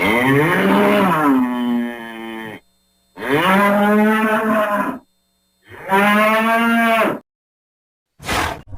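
A cow mooing: three long moos with short silent gaps between them, the first rising and then falling in pitch, followed by a brief short call near the end.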